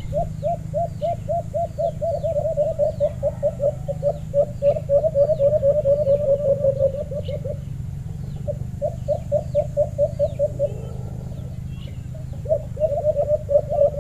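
Caged decoy dove (alimukon) calling: a rapid rolling run of coos, about six a second, that breaks off about halfway and starts again twice. Faint chirps of small birds sound higher up.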